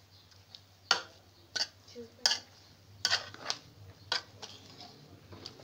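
A serving spoon clinking and scraping against a metal pot of cooked pea pulao as the rice is scooped out for serving, about half a dozen sharp clinks.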